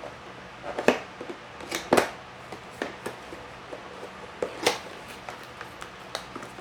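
Packaging being handled during unboxing: scattered sharp clicks and knocks, the loudest about one second in, two seconds in and near five seconds.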